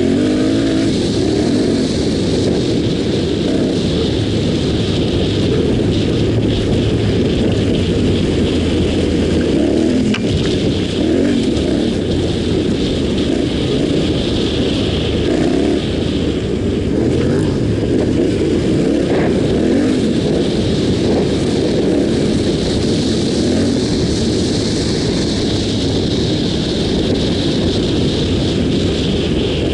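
Yamaha Ténéré 700's parallel-twin engine running continuously while riding off-road, its note rising and falling with the throttle, with a few scattered knocks from the bike over the rough track.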